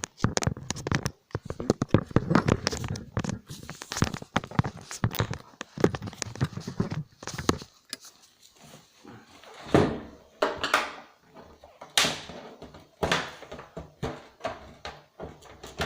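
Irregular knocks, clunks and scrapes as the plastic case of an old CRT TV is handled and worked on with hand tools during a teardown. The stronger knocks come around 10 and 12 seconds in.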